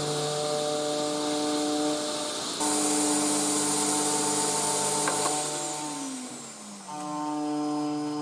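DIY CNC router milling an aluminium plate with an adaptive toolpath: a steady machine whine breaks off and starts again as the cutter moves back and forth, over a vacuum cleaner's noise. A harsher hiss comes in about two and a half seconds in, and a tone glides down in pitch a little past halfway.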